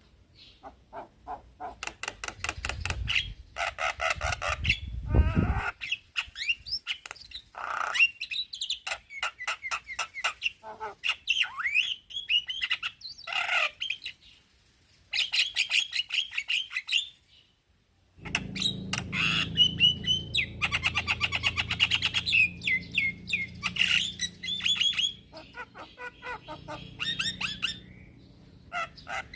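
Male Javan myna (jalak kebo) singing: fast chattering rattles mixed with whistled notes and harsh squawks, with a short pause a little past the middle. A low steady hum runs under the calls in the second half.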